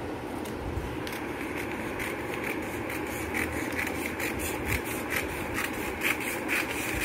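Scissors cutting through folded newspaper: a run of short, crisp snips starting about a second in, about two to three a second, over a steady low background noise.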